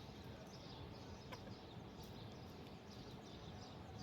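Faint outdoor background noise with faint, scattered bird chirps high in pitch, and a single soft click about a second in.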